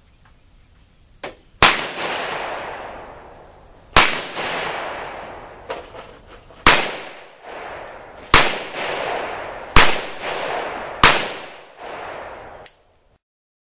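Six shots from a Ruger Super Blackhawk .44 Magnum revolver, fired one at a time about one and a half to two and a half seconds apart. Each is a sharp bang with a long echoing tail.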